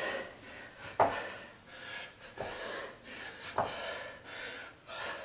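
A man panting hard during push-up jacks, with a sharp breath out about once a second. Each breath comes with a light knock, the shoes landing on the floor.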